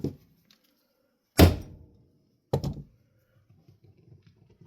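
Two heavy thunks about a second apart, the first the louder with a short ring after it, from a big flathead screwdriver at work on a stuck screw in a ceiling fan's motor housing.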